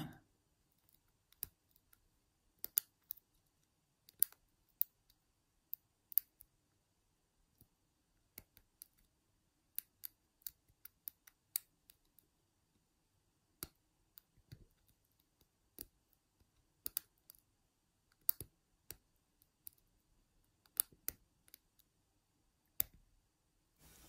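Small, sharp metallic clicks at uneven intervals, now single, now in quick little clusters, from a lock pick and tension wrench working the pin tumblers inside a 40 mm Yale padlock.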